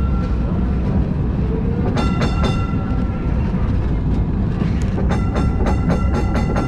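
Historic street tram running slowly on its rails with a steady low rumble. Its warning bell rings in rapid runs of strikes, a short run about two seconds in and a longer one from about five seconds to the end.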